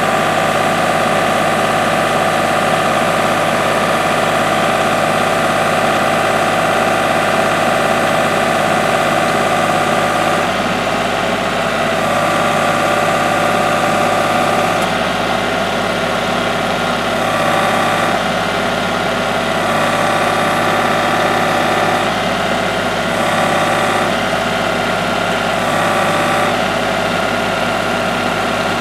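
Kubota L3301 HST tractor's three-cylinder diesel engine running steadily, its note shifting slightly a few times as the backhoe works to lift the log.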